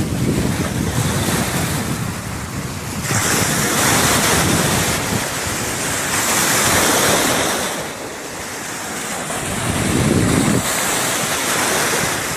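Small waves breaking and washing up a sandy shore close to the microphone, the foaming surf hissing in surges that swell and fall back every few seconds. Wind rumbles on the microphone.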